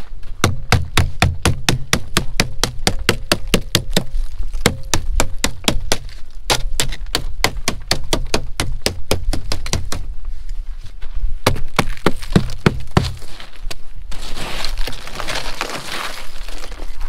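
Plastic ice scraper chipping and scraping a crust of storm ice off a car windshield in quick sharp cracking strokes, about four or five a second. Near the end the strokes give way to a few seconds of swishing as loose snow and ice are pushed off the glass with a gloved hand.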